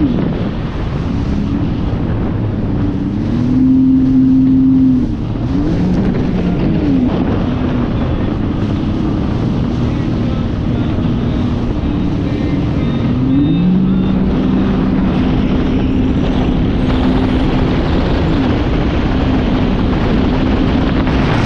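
Jet ski engine running, its pitch rising and falling several times as the throttle is opened and eased, with a higher, steadier run through the second half. Heavy wind buffeting on the microphone and rushing water run throughout.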